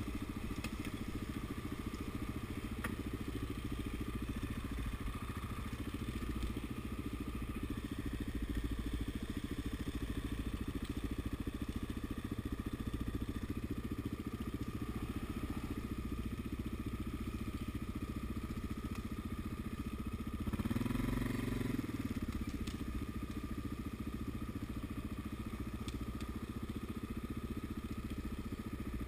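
ATV engine running steadily while riding over rough ground, with a brief rise in revs about twenty seconds in.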